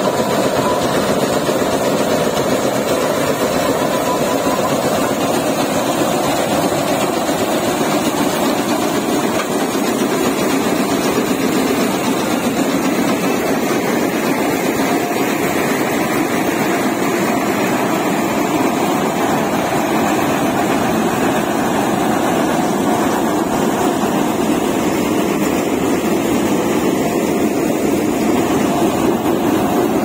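Hind 999 combine harvester running while harvesting rice: a loud, steady din of its engine and threshing machinery that holds the same level throughout.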